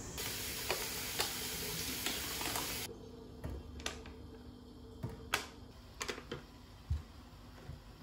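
A steady hiss for about three seconds, then soft, irregular taps and clicks as strawberries are lifted from a plastic clamshell and dropped into a stainless steel mesh strainer.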